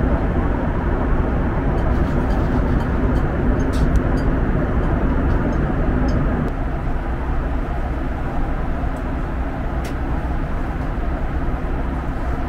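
Steady cabin noise of a Boeing 737 MAX 8 at altitude: a constant rush of air with engine hum. About six and a half seconds in, the steady low drone drops out and the noise becomes a little quieter.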